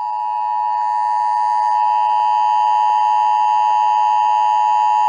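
Emergency Alert System attention signal: the steady two-tone alert of 853 and 960 Hz sine tones sounding together, growing a little louder over the first two seconds and then holding unbroken. It announces the start of an emergency alert broadcast, here a test message.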